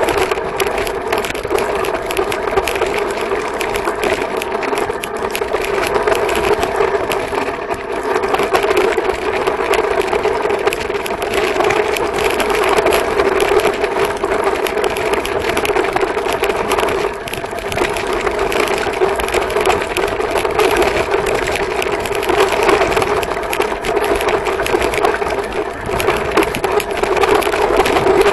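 Dog sled running over snow: a steady scraping and chattering from the runners and frame, with a constant hum underneath.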